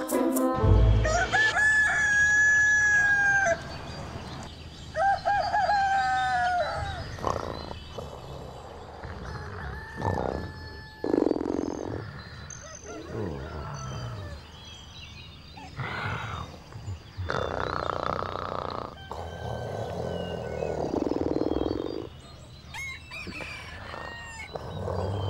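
Rooster crowing: two long crows in the first seven seconds or so, followed by shorter squawks and clucks of fowl.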